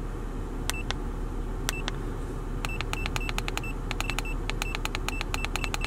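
Launch CReader 5001 OBD-II scanner's keypad beeping as its arrow button is pressed to scroll a menu: two single high beeps, then a quick run of them at about four a second, over a steady low hum.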